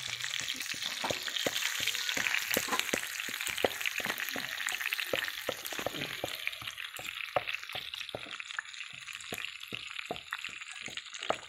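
Hot oil sizzling and crackling steadily around whole field rats shallow-frying in a pan, with many small pops.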